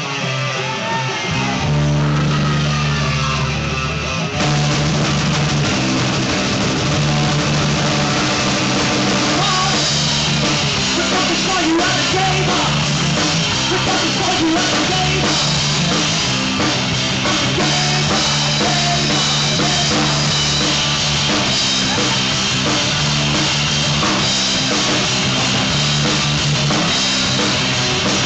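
Live rock band playing a song: electric guitar, bass notes and a drum kit. The low bass line comes in about a second and a half in, and the full band kicks in, louder, about four seconds in.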